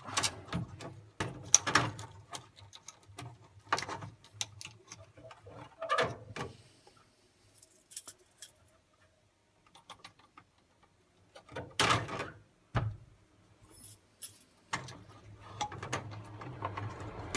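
Plastic wiring connectors being worked loose and pulled off an Ariston Microgenus boiler's circuit board: scattered clicks and knocks with rustling of wires and plastic housing, going quiet for a few seconds in the middle.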